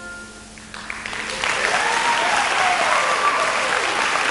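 Audience applause: after a brief hush it breaks out about a second in, quickly builds and goes on as steady clapping.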